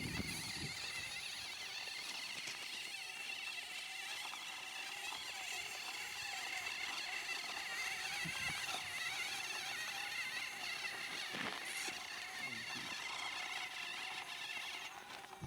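Steady high-pitched buzzing whine of small electric motors in radio-controlled models, several wavering tones running together.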